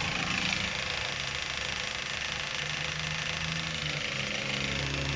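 2010 Chevrolet Captiva's 2.4-litre four-cylinder engine idling steadily with a fast light knocking (golpeteo) from the front of the engine. The mechanic most likely blames the timing chain set, meaning worn chains, tensioners and guides, since the noise stays with the drive belt removed.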